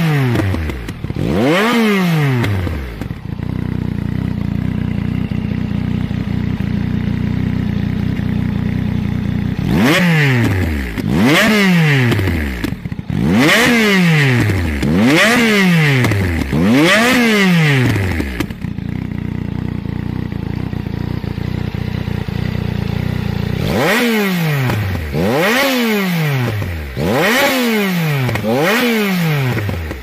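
Yamaha XSR900's inline three-cylinder engine running through a LeoVince twin-can aftermarket exhaust, revved in sharp throttle blips that rise and fall back quickly. The blips come in three groups: a couple at the start, about six in the middle and about five near the end, with steady idle in between.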